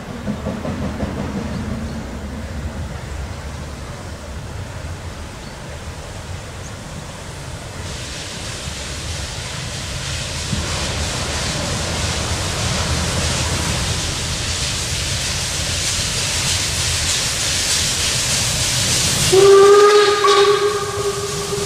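Narrow-gauge steam locomotive pulling away under load, its exhaust beats and the hiss of steam from open cylinder drain cocks growing louder as it comes closer. Near the end it gives one steam-whistle blast of about two seconds, the loudest sound.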